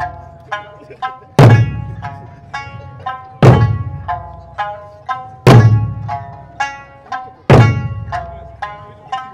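Eisa ōdaiko, large Okinawan barrel drums, struck together by the troupe: four heavy booming strikes about two seconds apart, the loudest thing heard. Between the strikes runs amplified accompaniment music with a quick plucked-string melody.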